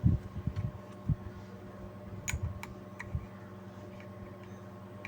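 A few sharp light clicks and soft taps from handling a new D2030A amplifier IC, fitting its legs into the circuit board, over a steady low hum.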